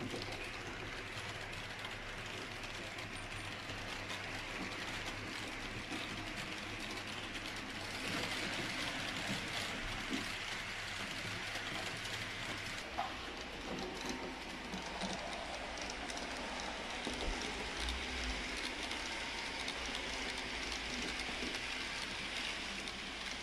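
H0-scale model freight train running on layout track: a steady mechanical running noise of wheels and motor. The sound changes in character about halfway through.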